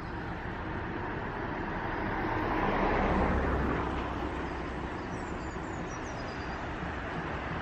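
A road vehicle passing close by, its noise swelling to a peak about three seconds in and then fading back to a steady traffic hum.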